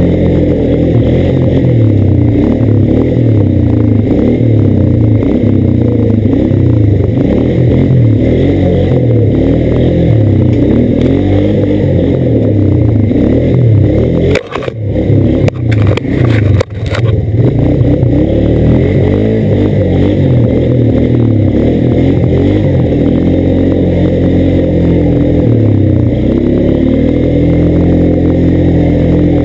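ATV engine running as the quad is ridden, its pitch rising and falling with the throttle. About halfway through, a few knocks come with brief dips in the engine sound.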